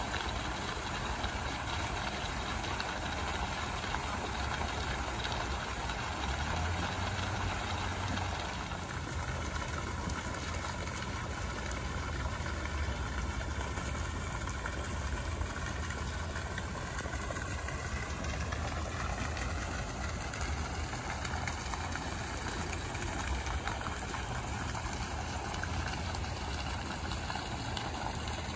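A steady low engine drone under a wash of noise that thins a little about eight seconds in; faint tones glide slowly upward in the second half.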